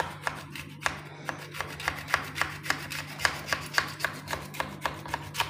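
Hand-held plastic garlic crusher grinding garlic cloves: a quick, even series of crunching clicks, about four a second.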